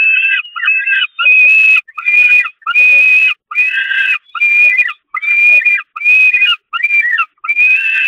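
Young peregrine falcon giving loud, repeated begging calls for food. There are about eleven calls, each roughly half a second long, at a steady high pitch with short gaps between them.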